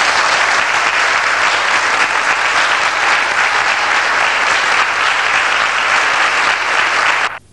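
Audience applauding steadily. The applause cuts off abruptly near the end.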